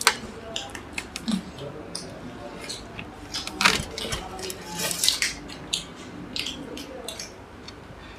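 Crisp masala dosa being torn apart by hand and chewed: scattered sharp crackles and crunches, with louder bursts of crackling about three and a half and five seconds in.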